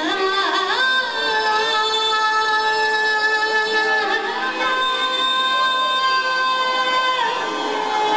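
A woman singing a Nepali song into a microphone with instrumental accompaniment. She holds two long notes, one from about a second in to about halfway, and the next until near the end.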